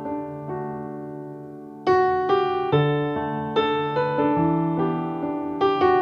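Background piano music: slow notes and chords that are struck and then fade, with a louder chord about two seconds in.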